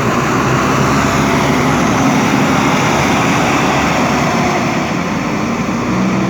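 Diesel engine of a JCB 3DX Super backhoe loader running steadily, with a dense mechanical din over its low engine note.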